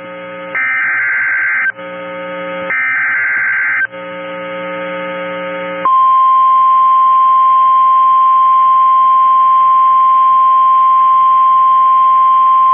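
NOAA Weather Radio Emergency Alert System signal: two short buzzy bursts of SAME digital header data about a second long, each followed by about a second of radio hiss. About six seconds in, the steady single-pitch 1050 Hz weather radio warning alarm tone starts and holds. It marks an incoming warning.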